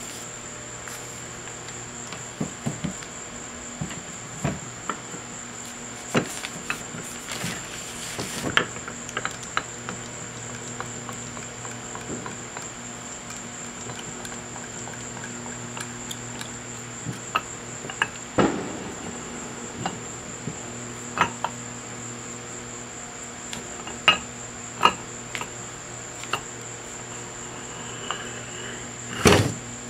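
Scattered metal clinks, taps and knocks of hand tools on steel lathe parts as the compound is worked apart, over a steady high-pitched whine and a low electrical hum.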